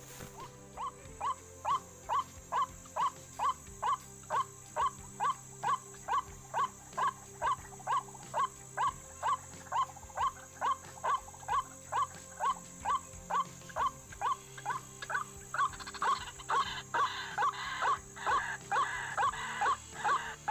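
White-breasted waterhen (ruak-ruak) calling: a monotonous run of short 'kwak' notes repeated about twice a second. From about three-quarters of the way in, a louder, harsher layer of calls joins it.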